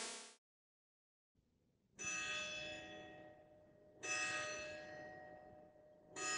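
A bell tolls three times, about two seconds apart, each strike ringing and slowly fading. Electronic music fades out just before the first toll.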